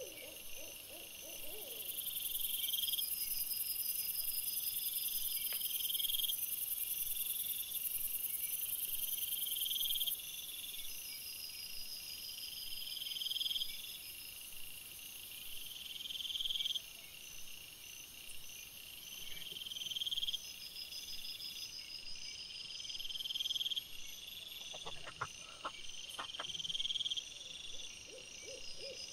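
Night calling of small animals: a high, swelling trill repeating about every one and a half to two seconds over a steady high hiss, with a few faint clicks near the end.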